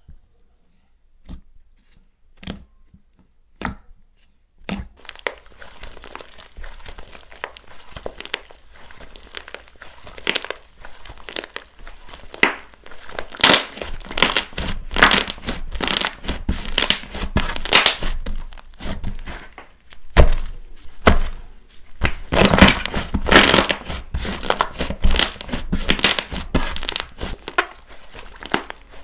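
Hands playing with slime, making crackling, crinkly squishing sounds. A few separate taps come first, then after about five seconds the crackling runs on without a break, with repeated louder squeezes.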